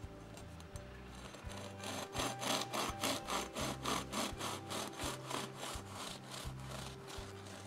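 Serrated bread knife sawing through the crisp crust of a ciabatta loaf, in quick back-and-forth strokes about four a second, starting about two seconds in.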